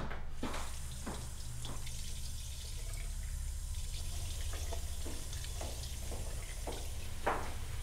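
Water running from a tap into a stainless steel sink, with hands rubbing and rinsing under the stream. A few footsteps in the first seconds and a single knock near the end.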